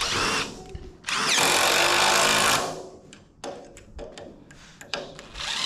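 Cordless DeWalt drill driving screws into a pine 2x10 joist to fix a small block onto its end. A short burst comes at the start, then a longer run of about a second and a half that spins up with a rising whine. After that come a few light knocks and clicks, and the drill starts again at the very end.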